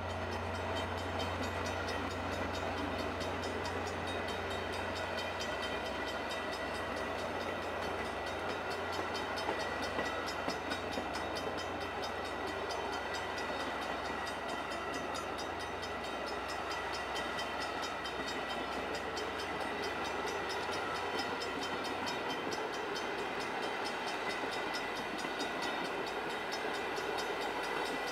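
VIA Rail Renaissance passenger cars rolling steadily past, a continuous rumble of wheels on rail. A low hum underneath fades away about halfway through.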